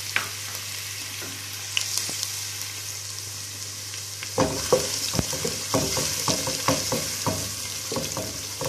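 Chopped onions and whole spices sizzling steadily in hot oil in a nonstick pot. About halfway through, a wooden spatula starts stirring them, scraping and knocking against the pan a few times a second.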